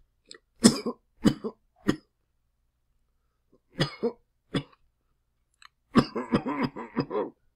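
A person coughing loudly in bouts: three coughs about a second in, two or three more near the middle, then a rapid string of coughs near the end.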